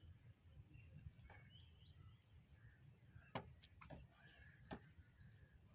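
Near silence with faint bird chirps, a low rumble and a few soft clicks, the loudest about three and a half seconds in.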